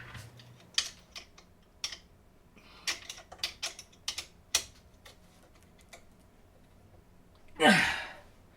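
Irregular light clicks and taps of an Allen key, screw and metal frame parts being handled while a 3D printer frame is screwed together. Near the end comes one short, loud sound that falls steeply in pitch.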